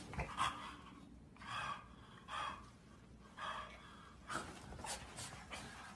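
A person gasping: four short, breathy gasps about a second apart, then a few light knocks near the end.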